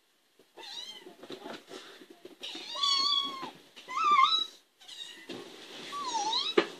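Young kittens meowing: several high-pitched mews, the longest lasting about a second in the middle, the last one dipping and rising again. A single sharp knock near the end.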